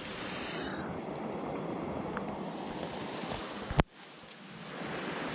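Steady rush of running water from a nearby creek and rain falling through the forest. About four seconds in, a sharp click, after which the sound drops out briefly and fades back in.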